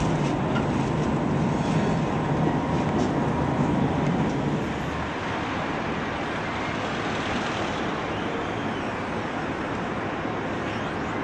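Steady rumble of riding aboard a tram. About four and a half seconds in it gives way to a quieter, even noise of street traffic at a tram stop.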